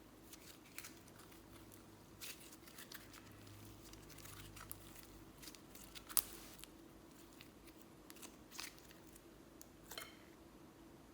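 Slime being worked by hand, giving faint, scattered sticky crackles and clicks, the sharpest about six seconds in, over a faint steady hum.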